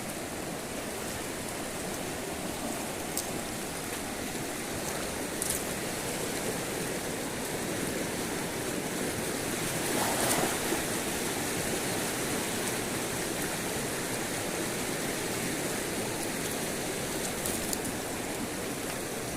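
River water rushing steadily over rocks, swelling slightly about halfway through, with a few faint high ticks.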